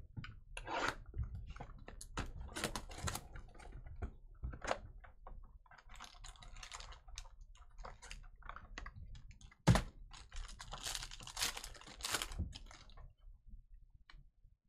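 Hands opening a pack of Panini Obsidian basketball cards and flicking through the cards: a run of quick papery clicks and rustles, with one sharp tap just before ten seconds in.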